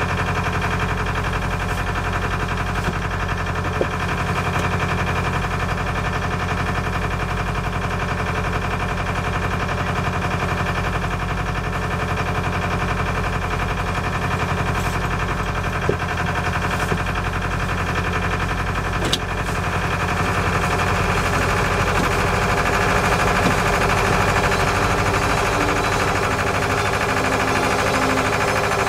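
A sailboat's engine running steadily, a constant drone, with a few faint clicks and a slight rise in level about two thirds of the way through.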